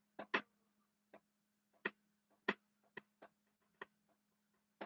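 Dry-erase marker clicking and tapping on a whiteboard as words are written: about eight short, faint, irregularly spaced clicks over a low steady hum.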